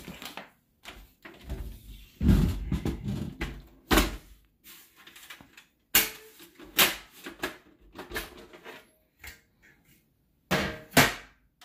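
A Dell OptiPlex 7040 tower case being handled on a hardwood floor and its sheet-metal side cover unlatched and pulled off: a loud thump about two seconds in, then a run of sharp clicks and knocks, two of them close together near the end.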